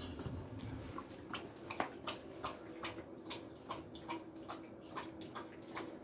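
German Shepherd lapping water from a stainless steel bowl, in quick regular laps of about two to three a second.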